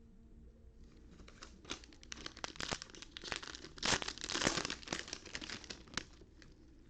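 Plastic trading-card pack wrappers crinkling and tearing as they are handled and ripped open, a run of irregular crackles that is loudest around the middle and stops near the end.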